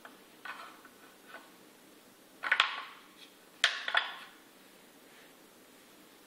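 Wooden puzzle pieces knocking and clattering against a wooden shape-sorter box, a few light knocks followed by two louder bursts of sharp knocks about two and a half and three and a half seconds in.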